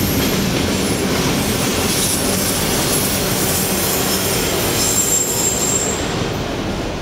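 Freight train of autorack cars rolling past at close range: a steady rumble of wheels on rail with thin, high-pitched wheel squeal coming and going. The last car goes by near the end and the sound begins to ease off.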